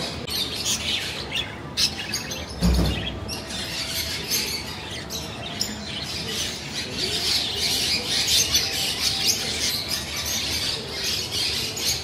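Many parrots chirping and squawking together in a steady, busy chatter of short high calls. There is a dull thump about three seconds in.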